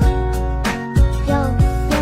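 Background music with a steady beat, bass and plucked-string or guitar-like notes.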